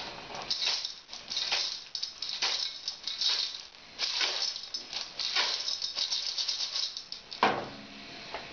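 A pot of periwinkles (vignots) being shaken, the shells rattling against the stainless steel pot in a run of irregular strokes, about one or two a second. About seven and a half seconds in comes a sharper knock, as the pot goes back down on the gas stove.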